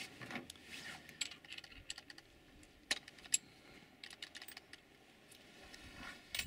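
Light metallic clicks and rattles of a drill chuck and bit being handled as the bit is swapped for a 4.8 mm one, with two sharper clicks about three seconds in.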